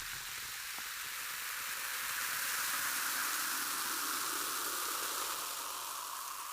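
Soda water fizzing: a steady hiss of carbonation bubbles bursting, swelling slightly through the middle.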